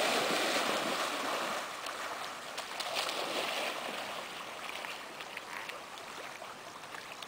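Water splashing and sloshing as a Chesapeake Bay Retriever wades into a pond and swims off, fading toward the end.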